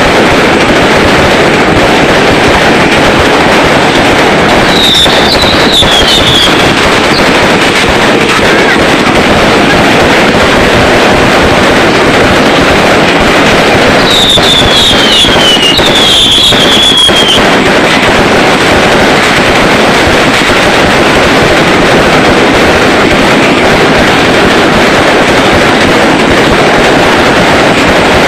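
New Year's Eve fireworks going off in a dense, unbroken barrage of crackling and popping, very loud throughout. Two clusters of short whistles falling in pitch cut through it, one about five seconds in and another around fourteen to seventeen seconds.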